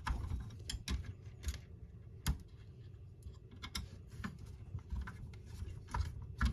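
Irregular small clicks and rustles of hands handling plastic scale-model parts and wiring, with sharper clicks about two seconds in and near the end.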